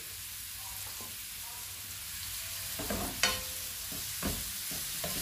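Chopped onion and baby cuttlefish sizzling in olive oil in an aluminium frying pan over turned-up heat, stirred with a wooden spoon. A steady hiss runs throughout, and from about three seconds in the spoon knocks and scrapes against the pan a few times.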